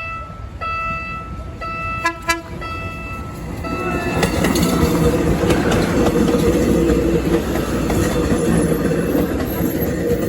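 Short pitched tones repeat about every two-thirds of a second, like a warning signal. About four seconds in, a passing PNR commuter train drowns them out with a loud, steady rumble of engine and wheels on the rails.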